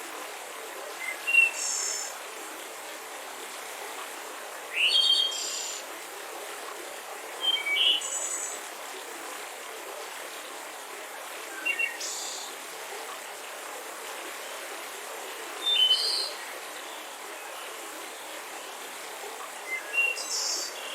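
Forest ambience: birds giving short, high chirping calls every three to four seconds, some rising in pitch, over a steady background hiss.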